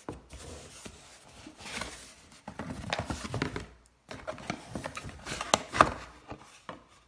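A product box being opened by hand: irregular rustling and scraping of the packaging with small clicks and knocks, and a couple of sharper clicks near the end.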